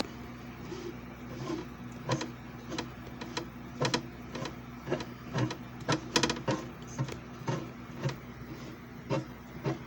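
JFJ Easy Pro disc repair machine running: a steady motor hum with clicks or knocks coming irregularly, about one or two a second.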